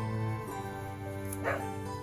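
A dog barks once, a short single bark about three quarters of the way through, over steady background music.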